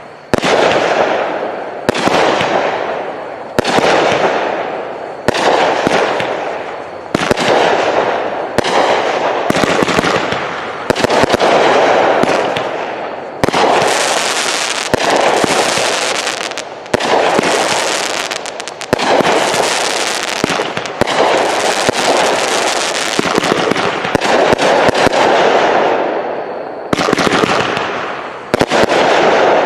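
Phantom Fireworks 30-shot cake firing its shots one after another, about one every one and a half to two seconds. Each shot is a sharp bang followed by a noisy tail that fades. Through the middle the shots come faster and run into each other.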